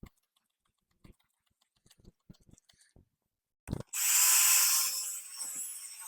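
A few faint handling clicks, then a knock and a cordless drill starts just before four seconds in, spinning a sanding pad against a plastic headlight lens. It runs with a steady motor whine under the sanding noise, loudest in its first second and then a little lower.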